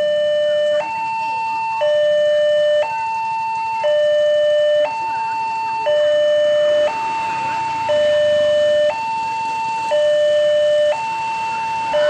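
Newly replaced electronic warning siren of an Indonesian railway level crossing, sounding from its pole-mounted speaker. It alternates steadily between a lower and a higher tone, each held about a second, warning that a train is approaching.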